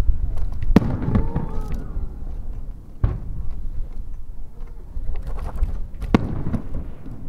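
Aerial firework shells bursting: three sharp booms, about a second, three seconds and six seconds in, the first the loudest.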